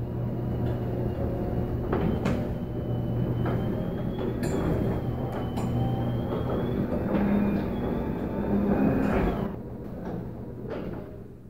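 Garage door travelling on its electric opener: a steady motor hum under the rumble and rattle of the moving door, with scattered clicks, dying down about nine and a half seconds in.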